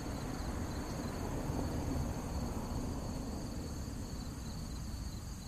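Insects chirping steadily in a summer field, with a low rumble of wind noise underneath.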